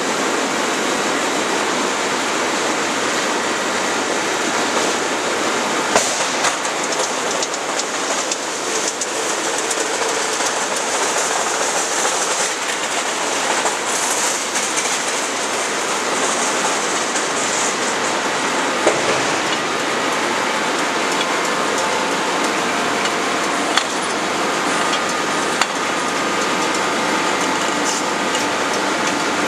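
Steady rushing noise of a hot-forging line running: billet furnace and conveyor machinery, with a few short, sharp metal knocks scattered through.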